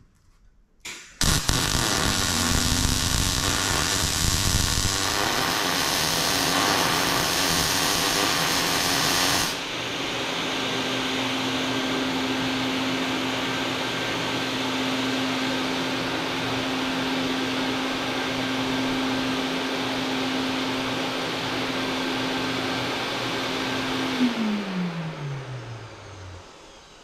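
Wire-feed (MIG) welder arc crackling for about eight seconds, over the whir of a Lincoln Electric Mini Fume X-tractor fume extractor that has switched on automatically with the arc. After the arc stops, the extractor runs on with a steady hum, then shuts off and winds down in falling pitch near the end.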